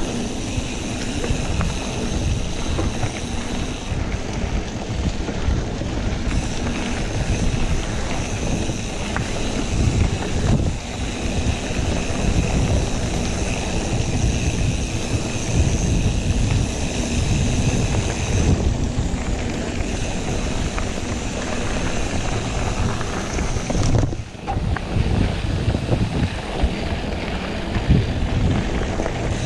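Wind rushing over the microphone of a camera on a moving mountain bike, mixed with the rumble and rattle of the bike rolling over a dirt trail.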